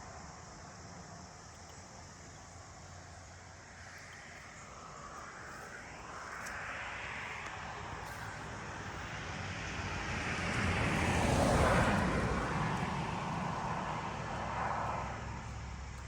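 A vehicle passing by, its noise slowly growing louder to a peak about twelve seconds in and then fading away.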